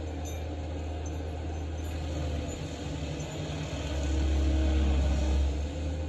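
Stump grinder's engine running as its cutter wheel grinds a stump down into wood chips; the engine gets louder about four seconds in, then eases back.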